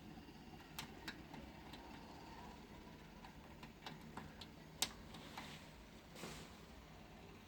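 A few light, irregular clicks and taps, the loudest a single sharp click about five seconds in.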